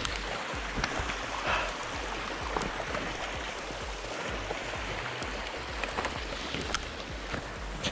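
Hiker's boots fitted with crampons tramping downhill through deep snow: soft irregular crunching steps over a steady rushing noise.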